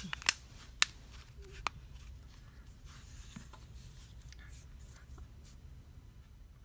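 Plastic back cover of an LG K10 phone being pressed onto the handset, its clips snapping in with four sharp clicks in the first second and a half.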